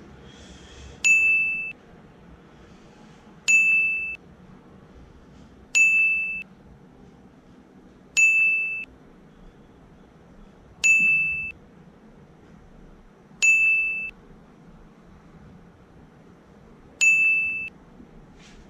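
An electronic beep sounding seven times, each a short, identical high tone that stops sharply, spaced two to three seconds apart.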